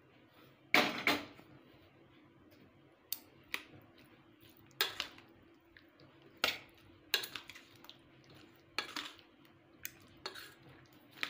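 Metal spoon clinking and scraping against a stainless steel bowl while stirring raw mango pieces into jaggery syrup. There are irregular knocks every second or so, the loudest about a second in.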